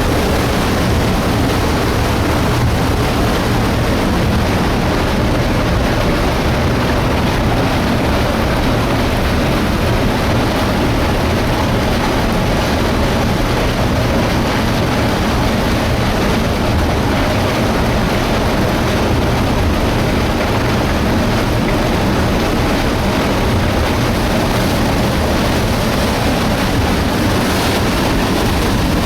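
Illgraben debris flow, a surge of mud, water and rock churning down the torrent channel, making a loud, steady, deep rumble with no let-up.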